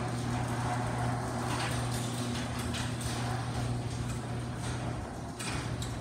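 LiftMaster garage door opener lowering a white metal sectional garage door: a steady motor hum with a few sharp clicks, the hum stopping about five seconds in as the door reaches the floor. The speaker calls the closing sound strange.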